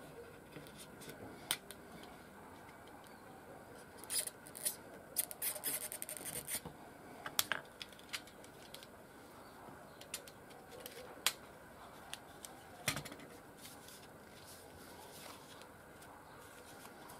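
Snap-off utility knife cutting and scraping a birch-bark sleeve: crisp small cuts and scrapes, with a quick run of clicks about four to seven seconds in and single sharp clicks now and then.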